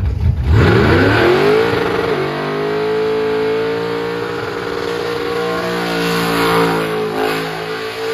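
Holden Commodore burnout car revving hard: the engine climbs quickly over about a second and a half, then holds high revs with small dips while the rear tyres spin and smoke.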